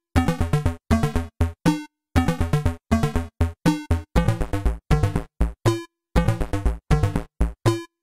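Electronic background music: short, choppy synthesizer notes in a steady rhythm, with brief silent gaps between the phrases.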